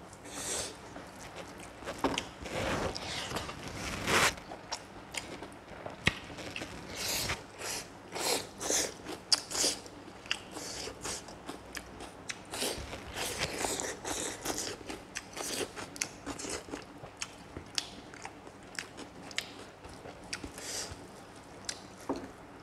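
Close-up chewing and crunching of a mouthful of rice with pork and dry bamboo shoot, in irregular bites and smacks.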